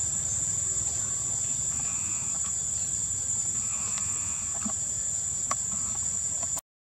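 Steady high-pitched drone of insects in the forest, with a few faint ticks over it; the sound cuts out abruptly near the end.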